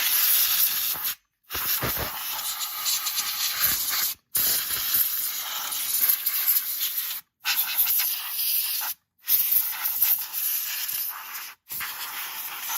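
Steady hissing noise, mostly high-pitched, in stretches of one to three seconds broken by several abrupt cuts to silence.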